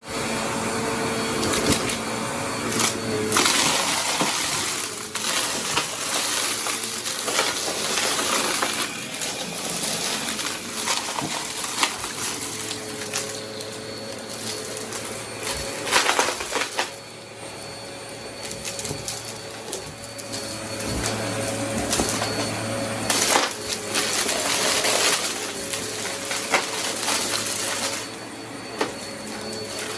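Vacuum cleaner running steadily, its motor humming under a constant rush of air. The sound surges louder several times as it is pushed along, with scattered clicks and rattles of debris being picked up.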